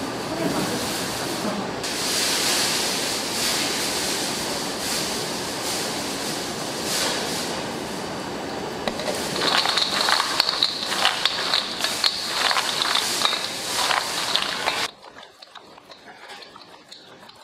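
Spatula and stirring working in a stainless-steel bowl of chocolate-coated almonds, with many short scrapes and clicks against the metal over a steady kitchen background noise. The sound drops away suddenly near the end.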